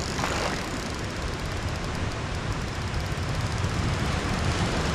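Surf breaking and washing over a rocky shore: a steady rushing noise with a strong low rumble.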